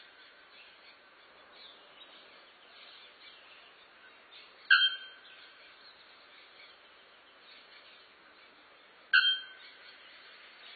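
Male bare-throated bellbird giving two loud, ringing, bell-like calls about four and a half seconds apart, each a sharp strike that dies away quickly.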